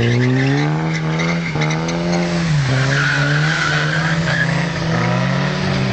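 Car engine running hard at a fairly steady pitch that dips briefly about a second and a half in and again near the middle, with tyres squealing.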